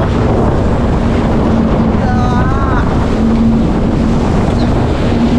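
Jet ski running at speed, its engine holding a steady drone under rushing water spray and heavy wind buffeting the microphone.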